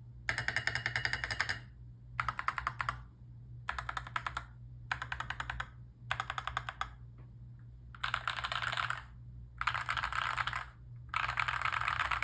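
Mechanical keyboard with PBT Cherry-profile keycaps being typed on in short runs of rapid keystrokes with brief pauses between. The last three runs are faster and denser. A steady low hum sits underneath.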